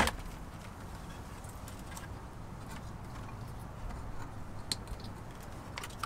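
A low steady background hum, with one sharp click at the start and a few faint light ticks near the end.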